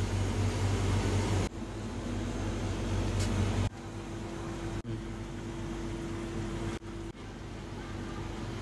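Steady low machine-like hum and background noise, which changes abruptly in level and tone several times.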